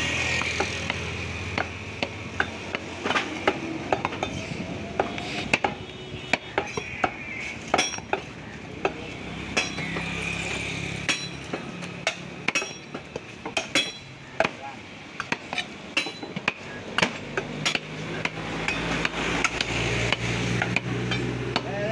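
A butcher's large curved knife knocking and tapping on a wooden stump chopping block as beef is sliced and cut, in many quick, irregular strikes, over a steady low hum.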